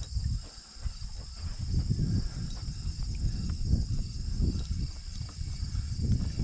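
Insects singing in a steady, high, even buzz, under irregular low rumbling bumps.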